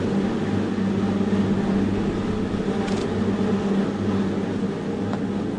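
A steady low hum with two faint clicks, about three seconds in and again near five seconds.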